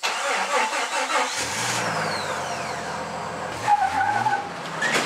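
Vehicle engine running and revving, its pitch dipping and then climbing again about three and a half seconds in.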